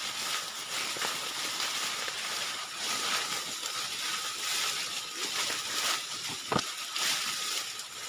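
Leaves and stems rustling and swishing as people push on foot through dense fern and shrub undergrowth, with one sharp click about six and a half seconds in.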